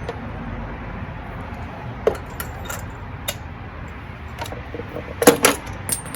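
Metal hand tools (ratchet and spark plug socket) clinking and knocking in a few separate clicks as spark plugs are unscrewed. The loudest clinks come in a short cluster about five seconds in, over a steady low hum.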